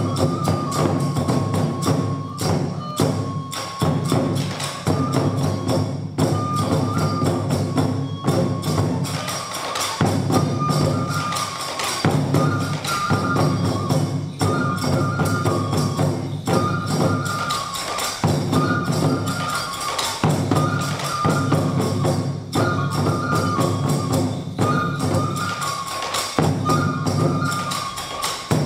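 Folk music for a Japanese kenbai sword dance: a transverse flute repeats a short two-note phrase about every two seconds over steady taiko drumming.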